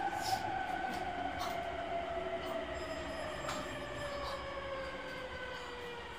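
On-board running sound of a JR East E231 series 1000 electric train with renewed equipment: the traction motor whine slides steadily down in pitch as the train slows, over rolling rail noise with a few sharp wheel clicks.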